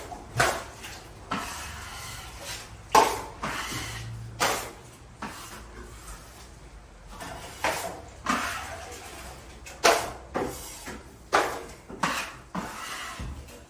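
Metal drywall tools scraping and knocking against a bucket of joint compound as it is mixed: about a dozen sharp clacks and scrapes at irregular intervals, roughly one a second.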